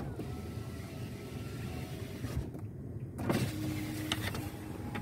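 A car's electric window motor whirring as the glass moves, in two runs with a short pause between them, over low rumbling wind noise.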